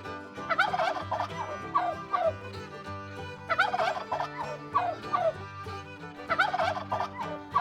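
Turkey tom gobbling, three rattling gobbles about three seconds apart, with shorter calls between them.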